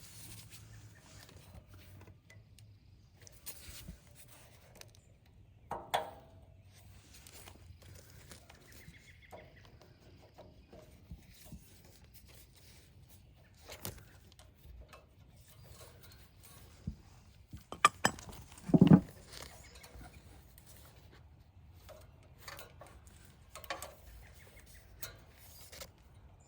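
Sporadic small clicks, clinks and knocks of tools and parts being handled during repair work on a generator, with a sharper click about six seconds in and a louder low thump, with a couple of clicks before it, near nineteen seconds.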